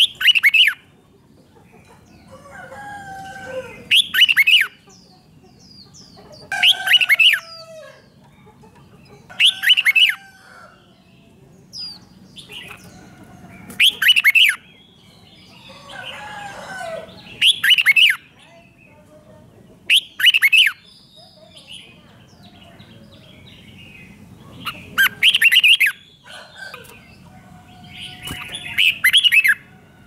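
Red-whiskered bulbul singing: about nine loud, sharp call phrases every three to four seconds, with softer warbling phrases between them.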